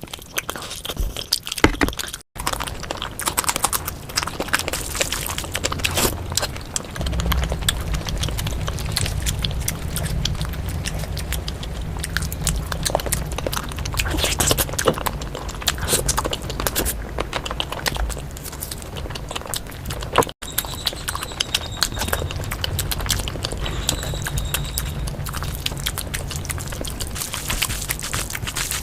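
Close-miked eating of spicy egg curry: wet chewing, lip smacks and mouth clicks in quick succession, with a low hum underneath for much of it.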